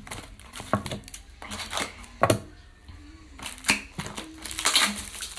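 Paper-wrapped soap bars being handled: rustling and crinkling of the paper wrappers, with a few light clicks and knocks as the bars are turned over in the hands.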